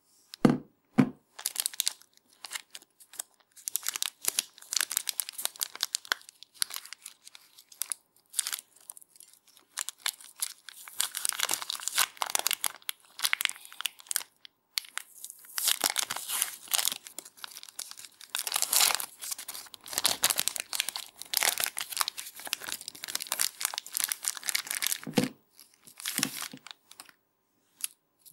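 A Cadbury Wunderbar's plastic wrapper being torn open and peeled off by hand, crinkling and tearing in irregular bursts, with a few soft knocks near the start and again about three seconds before the end.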